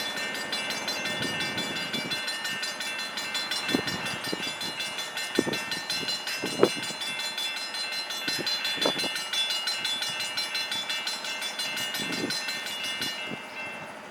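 A train passing at close range: wheels knocking over rail joints at irregular intervals, under a steady high-pitched whine of several tones that cuts off about thirteen seconds in.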